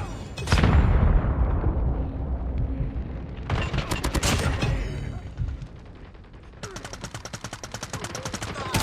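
Video-game gunfire: a heavy blast with a long fading tail about half a second in, a burst of shots around the middle, then rapid automatic fire near the end.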